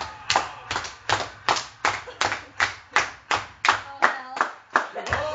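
A man clapping his hands in a steady rhythm, a little under three claps a second.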